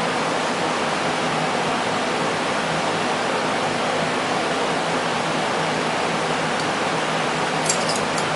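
Steady hiss of workshop background noise with a faint low hum. Near the end come a few light clicks from the 1911 pistol's small metal parts as they are handled.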